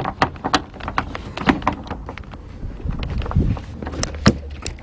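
Irregular metallic clicks and knocks of a freed door hinge and its drilled-out screw heads being handled, with a low knock or rumble a little past the middle.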